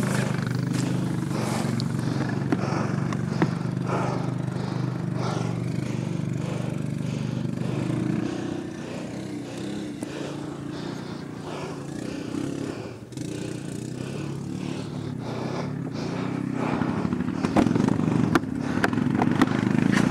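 Quad bike (ATV) engine running at steady revs, dropping quieter about halfway through and picking up again near the end, with a few knocks and clatter.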